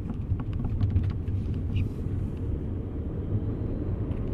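Freshly rebuilt turbocharged Audi A4 engine and road noise during a gentle test drive: a steady low rumble. The engine is being broken in, not yet pushed hard.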